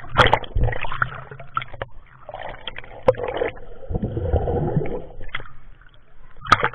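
Water splashing and sloshing in irregular surges, broken by a few sharp knocks.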